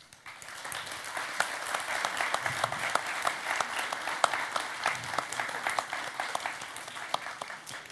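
Audience applauding: many hands clapping in a dense patter that builds over the first second and tapers off near the end.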